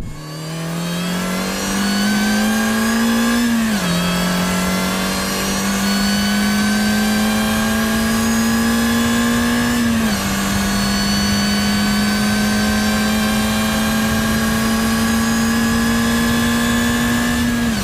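Mini Cooper GP1's supercharged 1.6-litre four-cylinder with a de-catted exhaust, accelerating hard: the engine note climbs steadily with the revs and drops at upshifts about four and ten seconds in and again near the end. A supercharger whine rises and falls with the engine.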